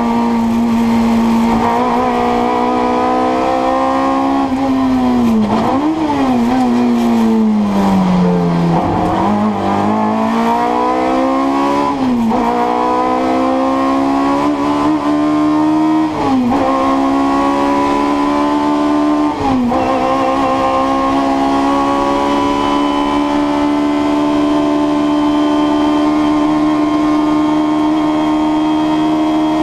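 Fiat 128 Coupé race car's 1300 cc four-cylinder engine at racing speed, heard from inside the cabin. The revs dip and blip as the car slows and downshifts, then it pulls hard through three upshifts in quick succession, each a sudden drop in pitch followed by a climbing note, before holding a steady high pitch for the last third.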